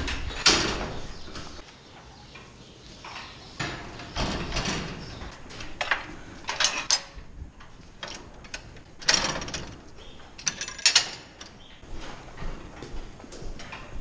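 Irregular metal clanks and rattles of a cattle feed barrier's self-locking headlocks as the lever mechanism is worked.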